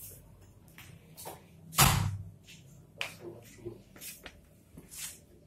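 Handling and movement noise as someone walks with a phone: one loud thump about two seconds in, then scattered short scuffs and rustles.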